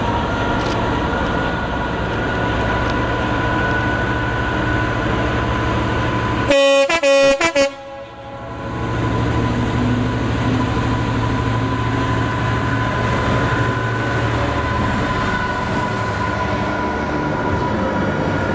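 Freightliner Class 66 diesel locomotive passing with an intermodal container train, its engine running steadily, broken by a rapid burst of about five short, loud horn toots a little over six seconds in. The container wagons then run past with a steady rumble.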